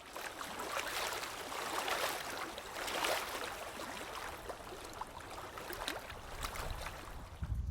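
Water trickling and splashing: a steady hiss flecked with small irregular splashes, cutting off abruptly at the end.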